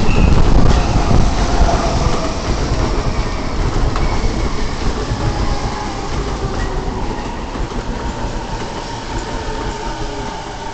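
JR East E233 series 2000 electric train rolling in and slowing to a stop: wheels clacking over rail joints, with a faint motor whine. The noise is loudest in the first second or so and dies away steadily as the train brakes.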